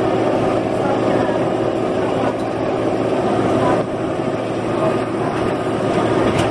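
Steady drone of jet aircraft engines, a constant hum with several steady tones running through it.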